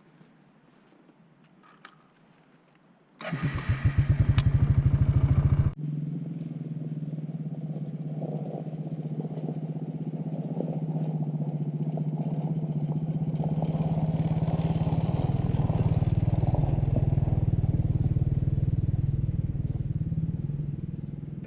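An engine cranked by its starter for about two and a half seconds, then catching and running steadily, getting slowly louder before easing off near the end.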